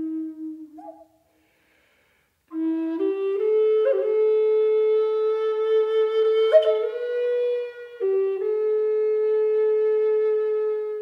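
Solo flute music playing slow, long held notes, with a short pause after the first note before the melody resumes.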